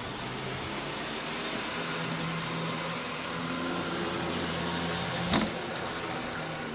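HO scale model diesel locomotive and freight wagons running past on the track: a steady running noise with a low hum, and one sharp click about five seconds in.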